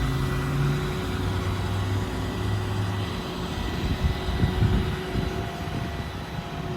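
Service-truck crane being worked through its functions: a steady mechanical hum that steps down in pitch about a second in and stops about three seconds in. Under it runs a constant rumble and a steady tone from the truck.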